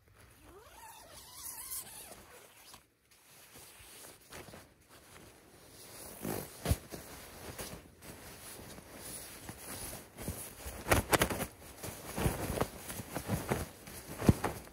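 Nylon shell of a down sleeping bag rustling and swishing as it is spread out and smoothed over an inflatable sleeping pad. It comes in short, irregular strokes, faint at first and louder from about six seconds in.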